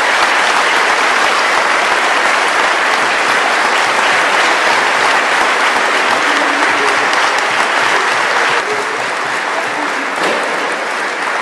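Audience applauding steadily, easing slightly about three quarters of the way through.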